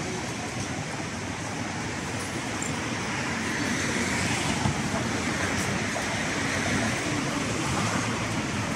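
Steady city street traffic noise, swelling for a few seconds in the middle as a vehicle passes close.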